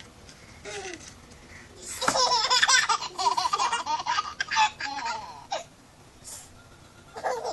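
A one-year-old baby laughing hard: a long run of high-pitched, pulsing giggles from about two seconds in until about five and a half seconds, with short baby vocal sounds just before and again near the end.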